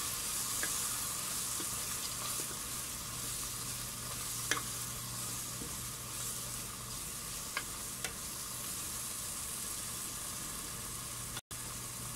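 Onion-tomato masala with spice powders sizzling in a pan on a gas burner while a wooden spatula stirs it, with a few light clicks of the spatula against the pan. The sound cuts out for an instant near the end.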